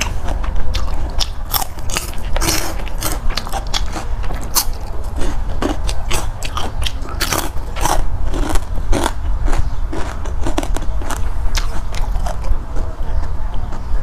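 Close-up chewing and crunching of crisp food in the mouth: many sharp, irregular crunches, several a second.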